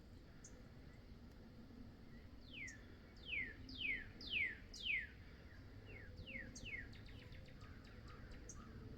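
A songbird singing repeated downslurred whistled notes, each sliding down in pitch. The song starts as a slow series of about two notes a second, then a quicker run of notes follows about a second later.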